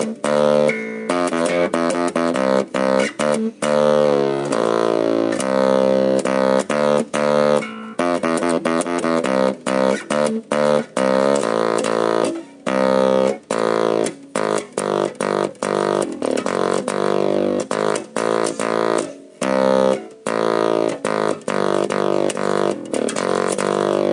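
Electric bass guitar played through a small LM386 half-watt amplifier and a little speaker, with the chip driven hard into distortion for a fuzz-bass funk tone. A melody of short plucked notes with brief gaps between them, and little deep bass.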